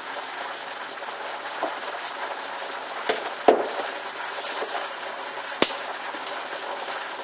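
A mixing bowl of blended pastry mixture being tipped and scraped out onto a floured board: a handful of sharp knocks and taps, the loudest about halfway through, over a steady hiss.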